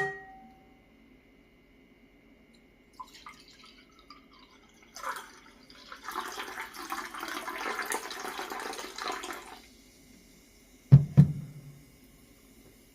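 Makgeolli poured from a bottle into a cup, a steady splashing pour lasting about four seconds, followed by two dull thuds near the end.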